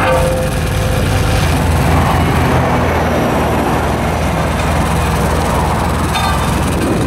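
Small double-drum asphalt roller's engine running steadily as the roller works the fresh asphalt, a continuous low rumble.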